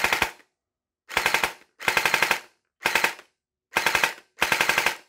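Hydro Strike Pulsar Pro gel blaster's electric gearbox firing in about six short bursts of rapid piston strokes. The motor is being screwed forward to set the pinion-to-bevel gear mesh, the point where a whine from the motor starts to come in.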